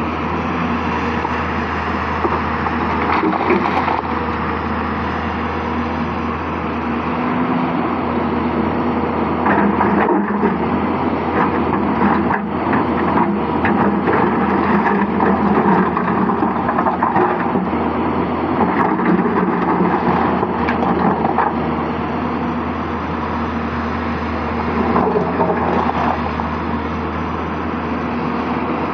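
Hyundai hydraulic excavator's diesel engine running steadily under working load, its pitch and noise swelling and easing as it digs and loads, with a few sharp knocks along the way.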